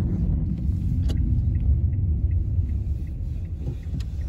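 Low, steady rumble of a car driving slowly, its road and engine noise heard from inside the cabin, with two faint clicks, one about a second in and one near the end.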